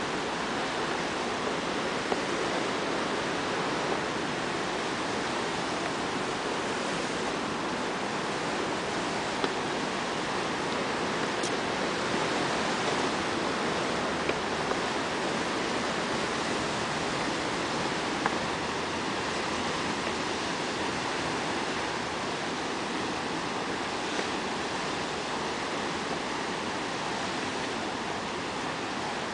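Sea surf breaking on a rocky shore, a steady rushing noise with a few faint clicks.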